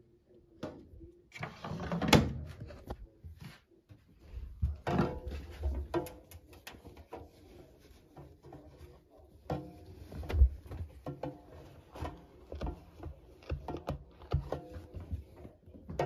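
Handling noises at a front-loading washing machine: clattering plastic knocks as the detergent dispenser drawer is worked, the loudest about two seconds in, then clothes rustled and pushed about in the drum with scattered bumps and knocks.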